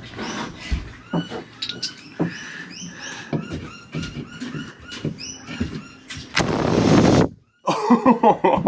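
Compressed air from a blow gun hissing in short puffs into the tubes of a boat engine's heat exchanger. This is followed by a blast of about a second that sprays water and gunk out of the tube bundle and cuts off abruptly.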